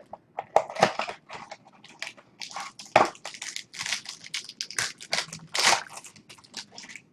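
A foil trading-card pack wrapper being torn open and crinkled by hand, with the cards inside handled: irregular crackling, with louder crunches about three and six seconds in.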